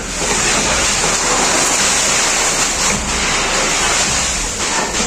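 Fireworks on a torito pinto, a bull-shaped frame of fireworks, burning with a dense, steady hiss of spraying sparks and faint crackling.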